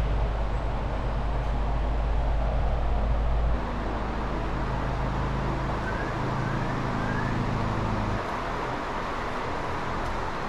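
Steady machinery running with a low hum that drops in level abruptly about a third of the way in and again near the end. Three short rising chirps come in the middle.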